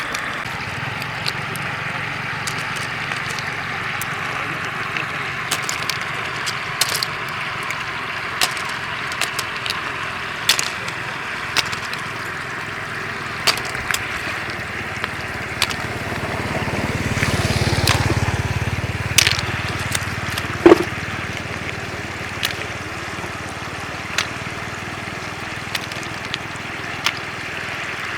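Shallow floodwater running steadily, with scattered sharp clicks and splashes throughout. About two-thirds of the way in, a louder rush with a low rumble swells and fades.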